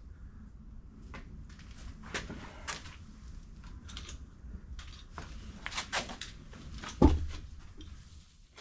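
Scattered knocks and clicks of objects being handled, with one heavier thump about seven seconds in.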